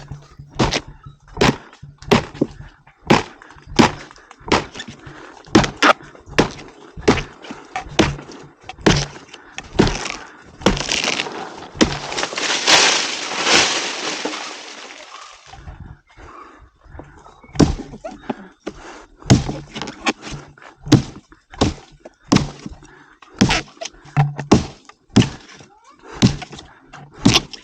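Repeated sharp strikes against a palm tree trunk, about one a second, with a few seconds of loud rustling hiss around the middle.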